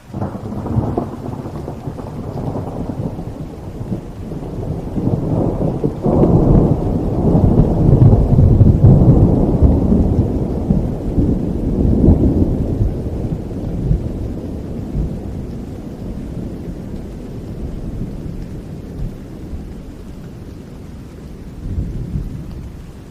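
A long roll of thunder over steady rain: the deep rumble starts suddenly, builds to its loudest about a quarter to half of the way through, then slowly rolls away, with one more brief swell near the end.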